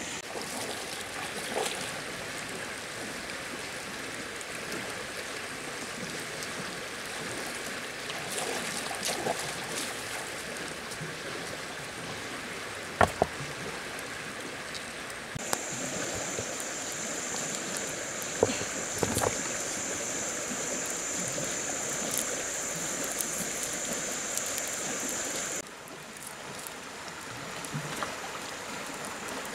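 Shallow river running over stones, a steady rushing hiss, with a few sharp clicks and knocks from sticks being handled at a campfire, the loudest a little before and after the middle. A high steady buzz joins about halfway and cuts off suddenly a few seconds before the end.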